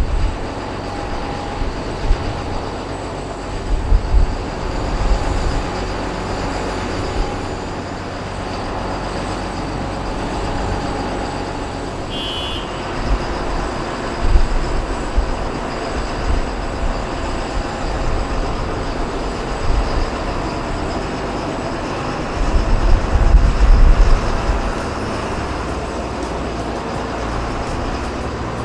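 Jet airliner engines running steadily, a continuous rushing hum with several steady whining tones. Gusts of wind buffet the microphone with low rumbles, the strongest about 23 seconds in.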